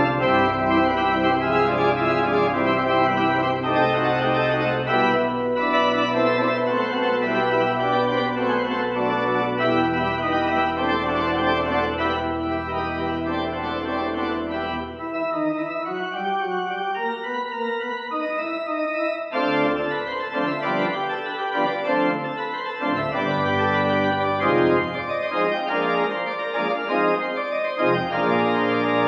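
Church organ playing a postlude: sustained full chords over deep pedal bass notes. The bass drops out about halfway through and comes back in short stretches near the end.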